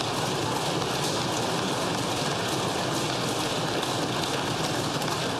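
Applause: many people clapping together, dense and steady.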